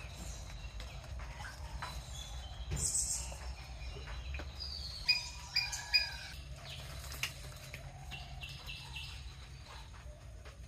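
Birds chirping: short, high chirps and calls come and go, with a louder run of sharp chirps about five to six seconds in, over a steady low background rumble.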